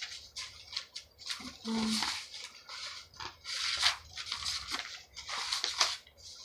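Sheets of paper being handled and shuffled: quick, irregular scratchy rustles. A brief voiced hum comes about two seconds in.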